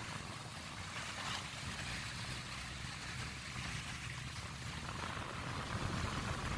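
Steady low rumble under a rushing hiss of moving water, growing slightly louder near the end.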